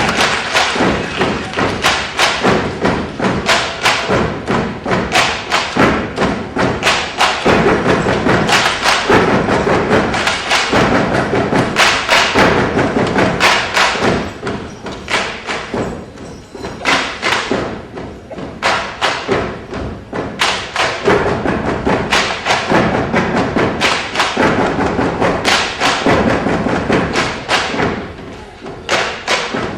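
Loud, rapid percussive thumps and knocks in a quick, uneven rhythm, with music.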